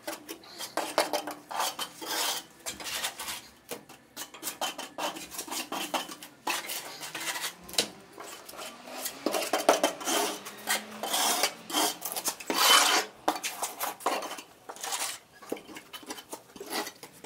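Small steel trowel scraping and clinking as it scoops mortar from a bucket and spreads it along the top of ceramic skirting tiles: irregular scrapes and sharp clicks, a few longer scraping strokes among them.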